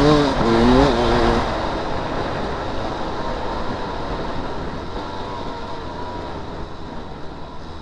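Enduro dirt-bike engine heard on board while riding a dirt track. It revs hard with a wavering note for about the first second and a half, then the throttle eases and the engine sinks into a steady rush of wind and riding noise.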